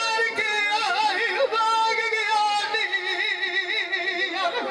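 Men singing Punjabi dholay in a high voice: long held notes alternating with a quickly wavering, ornamented vocal line.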